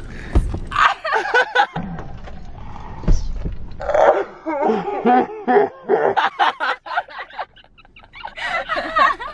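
Young women laughing loudly and shrieking as one scrambles into a car's back seat, with a couple of dull thumps as she lands.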